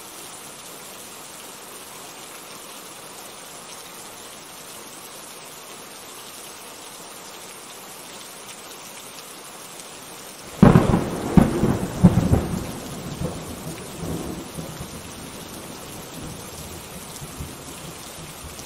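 Steady rain falling. About ten seconds in, a sudden thunderclap breaks in and rolls on for a few seconds, fading back under the rain.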